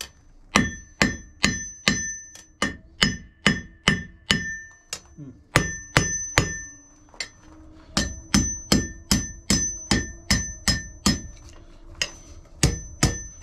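Hand hammer striking a steel bar on the face of an Alec Steele anvil, about two to three blows a second in runs with short pauses. Each blow leaves a high ring from the anvil that hangs on between strikes.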